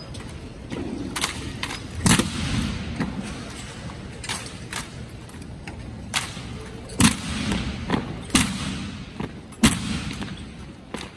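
Drill team's rifle drill: drill rifles slapped in the hands and struck down, with stomps, giving about nine sharp, irregularly spaced cracks and thuds, each ringing on in the echo of a large hall. The loudest come about two seconds in and again about seven, eight and a half and nine and a half seconds in.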